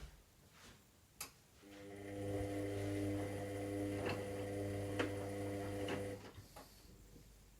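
Washing machine at the start of a synthetics warm-wash cycle: a click, then a steady electric hum with a low buzz for about four and a half seconds, with two sharp clicks in the middle, cutting off suddenly.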